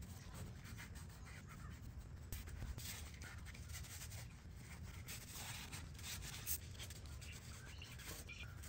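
Faint scratchy scrubbing: a small handheld scrubber rubbed back and forth over an aluminum engine block in quick, irregular strokes.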